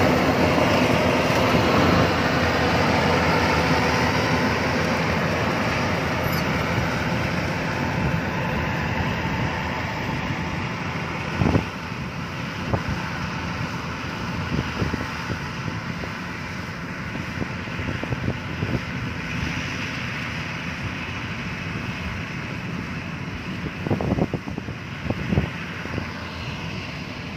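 Yanmar AW-82V rice combine harvester running steadily as it cuts and threshes, its engine and threshing machinery growing fainter as it moves away. A few short knocks stand out about eleven seconds in and again near the end.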